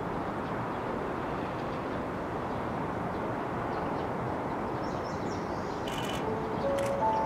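Shinkansen 500 series train running along the viaduct: a steady rushing noise, with a faint bird chirp about five seconds in.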